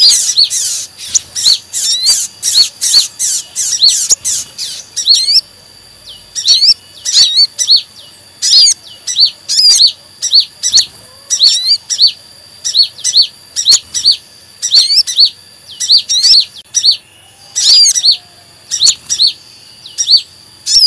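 Sunbird lure recording: high, thin chirps and squeaky notes repeated in quick series, a combination of ruby-cheeked sunbird (sogon) calls and brown-throated sunbird (kolibri kelapa) 'kejepit' distress calls. The calls come thick and fast for the first few seconds, then in spaced bursts.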